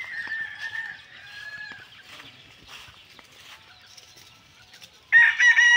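Free-ranging rooster crowing: a fainter drawn-out crow at the start, then a loud, close crow breaking in about five seconds in.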